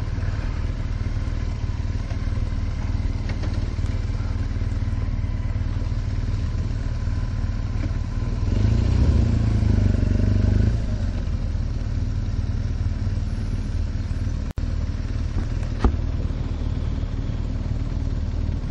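Motorcycle engines running at idle, with a louder stretch of about two seconds in the middle as a bike's engine rises and falls.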